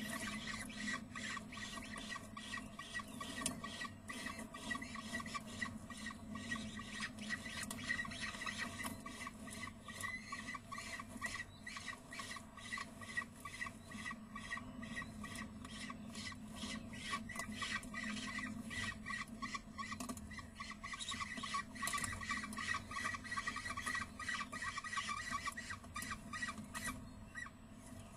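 Peregrine falcon chicks calling while the adult feeds them: a dense run of rapid, short repeated notes with clicking. Underneath is a steady low hum.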